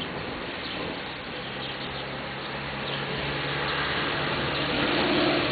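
Heavy thunderstorm rain pouring onto a paved road and foliage, a steady hiss. A low hum rises under it in the second half as the sound swells.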